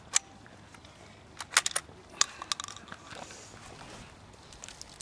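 20-gauge Hatsan Escort Magnum semi-automatic shotgun being loaded and readied: a series of sharp metallic clicks and clacks from cartridges going into the gun and the action being worked, with a quick cluster about one and a half seconds in.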